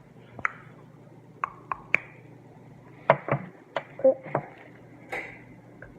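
Small sharp clicks and snaps, about ten scattered unevenly, as the snap-on bearing caps of a fidget spinner are worked off.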